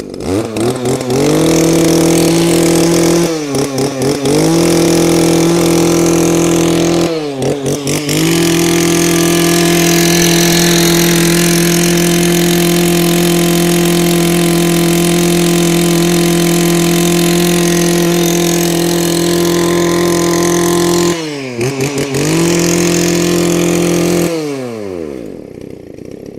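Small 21 cc two-stroke Mitsubishi brush cutter engine revved up to full throttle and held there, a crisp, steady high-pitched running sound. The throttle is let off briefly three times, dropping the revs before it climbs again. Near the end the revs fall away to idle.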